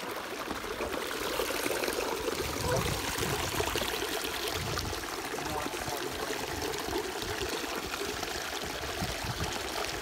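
Water running and trickling over rocks in a creek at a waterfall, a steady rushing, with a few short low bumps.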